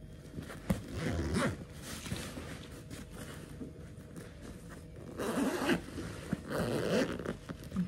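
Backpack zipper being pulled along its track in three short runs: one about a second in, and two more between five and seven seconds in, as the bag's compartments are opened.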